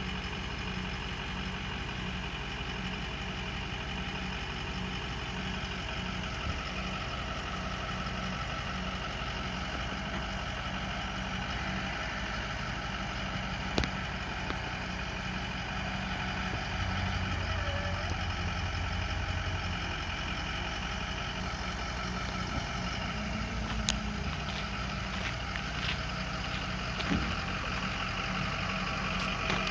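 Ford F-450 Super Duty bucket truck's engine idling steadily while its Terex aerial boom is lowered and stowed. A deeper hum swells for a few seconds past the middle, and a couple of sharp clicks stand out.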